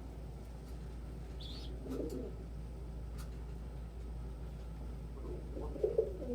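Domestic pigeons cooing: a short coo about two seconds in and another near the end, with a brief high squeak in between, over a low steady hum.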